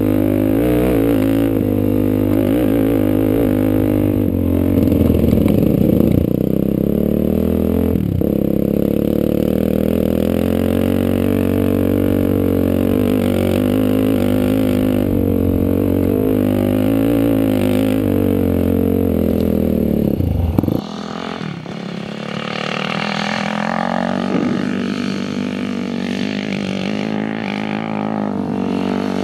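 Quad bike (ATV) engine running steadily under load, heard close up from the rider's helmet camera, with the pitch dropping and picking up again briefly twice, about 8 s in and just before 21 s. It then switches abruptly to a quad engine heard from a distance, thinner and noisier.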